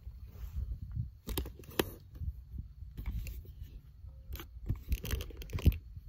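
Handling noise from a phone camera being picked up and repositioned: irregular knocks and rustles, several close together near the end, over a low rumble.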